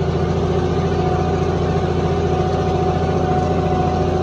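John Deere 5050D tractor's three-cylinder diesel engine, fitted with a modified fuel-injection pump and turbo, running at a steady speed under load while pulling a 20-disc hydraulic harrow through the soil.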